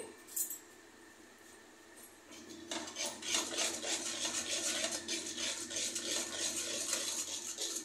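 Metal spoon stirring and scraping a wet spice paste around a kadhai. It starts nearly three seconds in as a quick, continuous run of scrapes against the pan.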